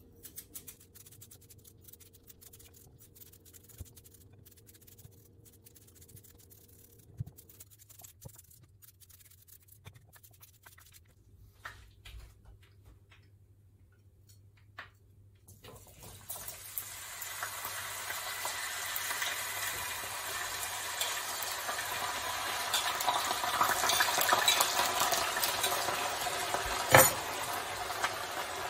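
Diced potatoes dropped into a frying pan of hot olive oil start to sizzle about halfway through, the frying hiss growing louder, with a sharp clink near the end as the bowl knocks the pan. Before that, only a few soft knife taps as the last potatoes are cut.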